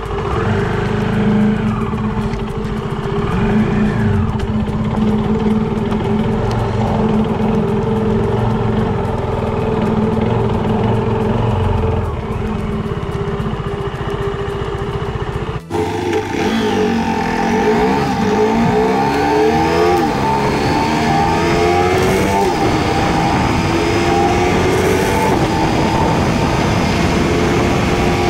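KTM Duke 250 motorcycle's single-cylinder engine heard while riding, played back at double speed. It runs at a steady speed at first; after a sudden cut about halfway through, the pitch rises and falls as it accelerates and shifts gears.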